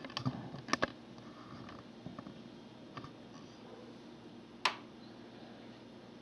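A few small clicks and knocks within the first second, then one sharp click a little under five seconds in as a stereo receiver's power switch is pushed on, its dial lighting up. A faint steady hum lies underneath.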